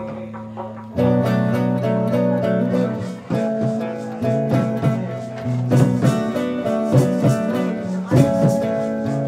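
Live reggae band playing an instrumental passage, a hollow-body electric guitar picking melody lines over the band; the band comes in fuller and louder about a second in.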